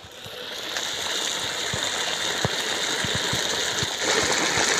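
Goat head curry bubbling in a pot as it simmers: a steady rushing noise scattered with small pops, growing louder over the first second.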